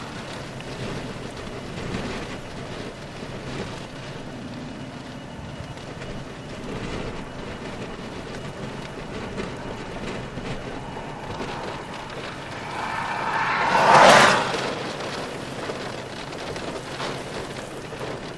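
Steady outdoor hiss, with a vehicle passing close by on the highway: a swell that builds over a second or so, peaks about fourteen seconds in and quickly fades.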